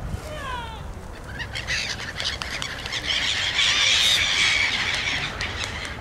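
A flock of gulls calling: a few falling calls in the first second, then a dense mass of overlapping squawking calls that is loudest about four seconds in.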